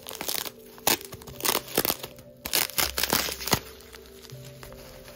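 Plastic bubble wrap crinkling and crackling as hands squeeze and unwrap a wrapped item, a quick run of sharp crinkles that thins out over the last second or so.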